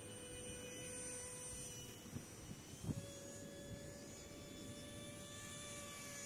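The 30mm electric ducted fan of a small foam RC jet whines steadily in flight, its pitch stepping up slightly about three seconds in. Wind rumbles on the microphone, with a brief low thump near the middle.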